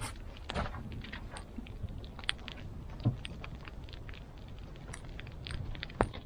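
Campfire crackling, with wood snapping in irregular sharp pops over a low steady hiss, one louder pop near the end.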